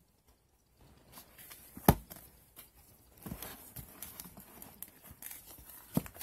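Books being handled and stacked: rustling and sliding that starts about a second in, with a sharp thud about two seconds in and another near the end as books are set down.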